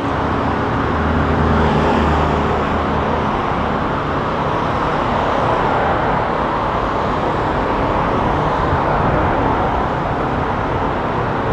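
City road traffic: a steady wash of car and engine noise from passing vehicles. A vehicle engine's low hum stands out in the first few seconds.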